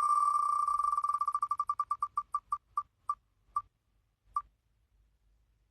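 Wheel of Names website's spinning-wheel tick sound: rapid high clicks that blur together at first, then slow steadily to a few spaced ticks and stop about four and a half seconds in as the wheel comes to rest.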